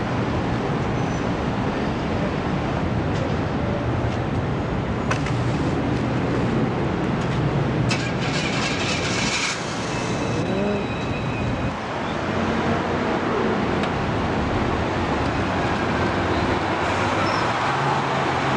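City street traffic: a steady rumble of engines and road noise, with a brief hiss about eight seconds in. A bus passes close near the end.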